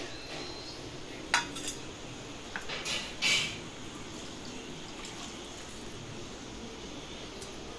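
Steel bowls and a spoon clinking a few times, with a short splash of coconut water poured from a cut green coconut into a steel bowl a little after the middle.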